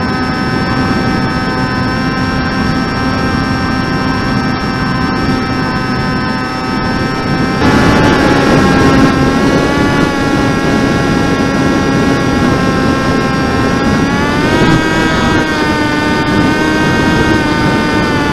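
Brushless electric motor and propeller of a Teksumo RC flying wing in flight: a steady whine over rushing noise. It gets louder about a third of the way in, and the pitch rises and falls back around three quarters of the way through as the throttle changes.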